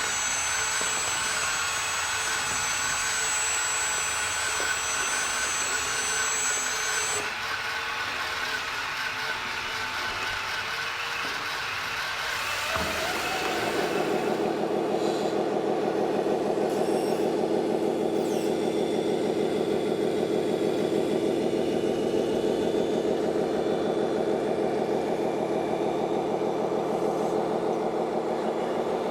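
Radio-controlled model trucks and construction machines running, with motor and gear whine. About 13 seconds in, a louder, steady engine-like drone takes over.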